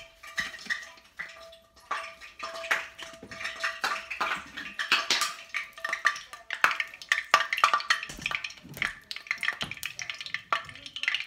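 Hot olive oil crackling and popping in a frying pan as it is tested for frying heat: a dense, irregular spatter of pops that starts suddenly and runs on.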